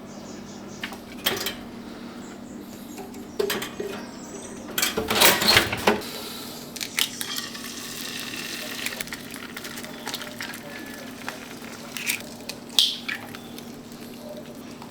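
Cooking sounds: pans and utensils clinking and clattering, busiest about five seconds in, then a stretch of pan sizzling, over a steady low hum.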